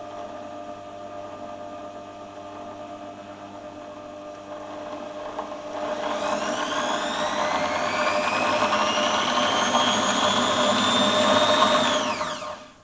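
Corded electric drill motor in a drill press stand, running slowly at first, then speeding up with a rising whine from about six seconds in as its variable-speed trigger is pressed further, and winding down near the end.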